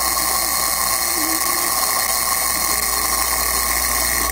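Sears Tradition electric alarm clock made by Sunbeam sounding its alarm: a steady, loud buzz that holds without a break, the repeat alarm going off as set.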